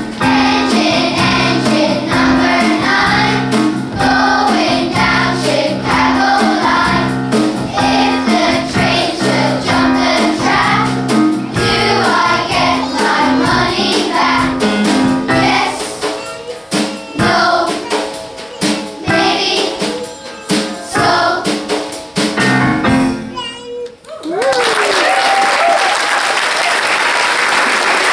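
Children's choir singing with keyboard accompaniment. The song ends a little over twenty seconds in, and the audience breaks into applause.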